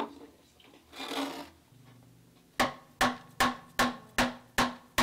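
Evenly spaced sharp knocks, about two and a half a second, starting about halfway through: the opening of a track just started in a laptop media player and heard over the hall's speakers.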